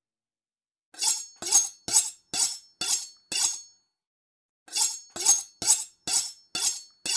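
A run of bright clinks with a short high ring, six at about two a second, a pause, then six more.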